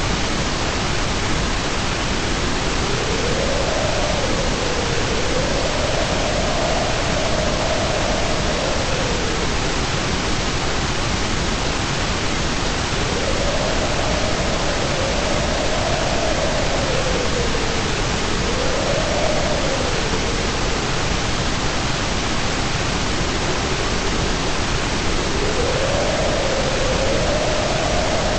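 Continuous white noise for relaxation, an even steady hiss. Under it a faint low tone slowly swells and falls in pitch every few seconds.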